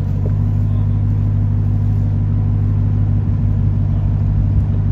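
Truck engine running steadily at low, constant revs: a steady low drone.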